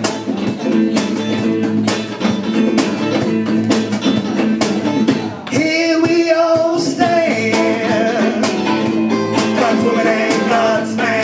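Live blues-rock band playing loud: electric guitars over a steady beat, with singing. A long held note sits in the middle.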